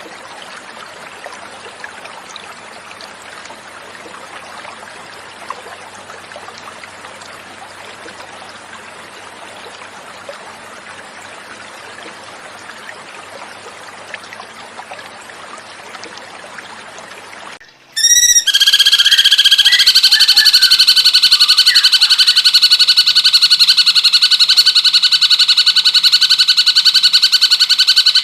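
Flowing water trickling steadily for about eighteen seconds, then a cucak cungkok's call starts suddenly and much louder: a rapid, fast-pulsing trill held on steady high pitches that runs on to the end.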